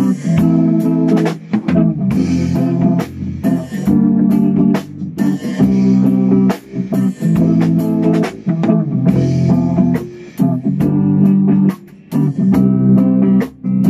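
Band rehearsal playing: electric bass and guitar with drums, looping a short riff about every two seconds with brief breaks between repeats.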